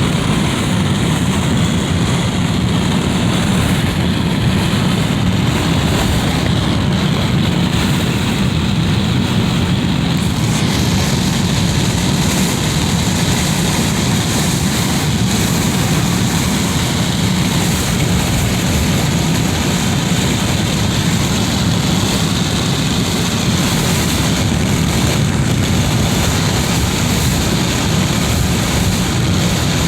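Wind blowing through a window: a loud, steady rushing with a deep low rumble.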